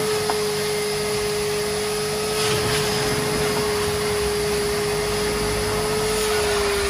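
Wet vac motor running steadily with a high whine, extracting detergent and dirt from car carpet. The whine drops slightly in pitch near the end.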